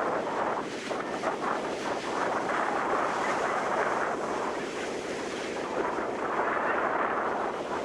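Ocean surf washing onto a sandy beach, a steady rushing noise, with wind on the microphone.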